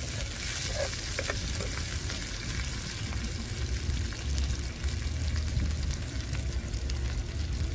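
Chopped onion sizzling steadily as it fries in hot oil in a pan, a fine crackling hiss.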